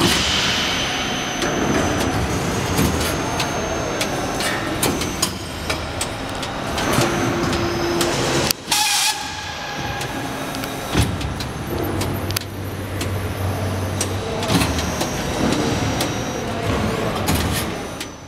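Horizontal plastic injection moulding machine running on a factory floor: a steady machine hum with scattered clicks and knocks, cut off briefly about halfway.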